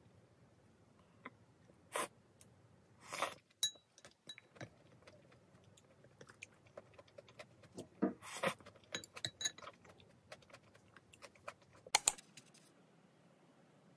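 Wooden spoon and chopsticks scraping and clicking against a ceramic bowl as the last noodles and soup are gathered up, with eating sounds in between. There are a few louder scrapes and slurps, and one sharp knock near the end.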